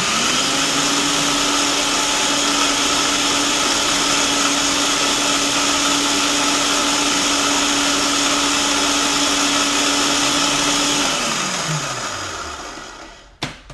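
Black & Decker food processor grinding pork rinds to a powder: the motor starts at once, runs loud at one steady pitch for about eleven seconds, then is switched off and winds down with falling pitch, followed by a short click.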